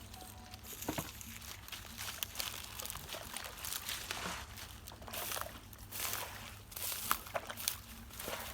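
Shallow water splashing and sloshing in irregular bursts, with a few sharp splashes, as fish are caught by hand in rice-field water.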